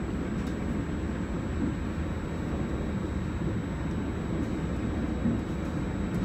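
Steady low rumble of a regional train running, heard from inside the passenger carriage, with a few faint clicks.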